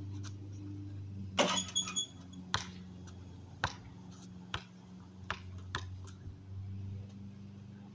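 Basketball bouncing on asphalt: a series of separate sharp thumps about a second apart. The loudest comes about a second and a half in, with a brief metallic ringing after it. A steady low hum runs underneath.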